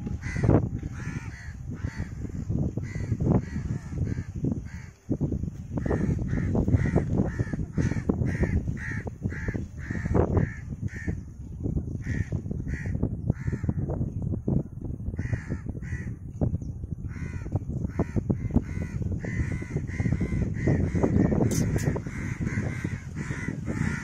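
Crows cawing over and over, many harsh calls overlapping with hardly a pause. These are typical of adult crows alarm-calling over a fledgling on the ground.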